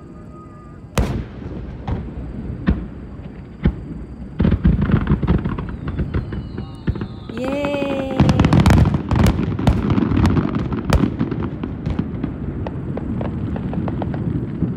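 Aerial fireworks shells bursting over water. A sharp bang comes about a second in, then a few single reports, and from about four seconds in a dense run of bangs and crackling that is loudest a little past the middle. A steady low rumble carries on under it.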